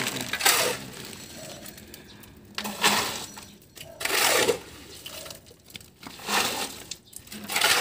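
Steel shovel scraping through wet concrete mix on the ground and loading it into a bucket: five separate scoops, one every second and a half to two seconds.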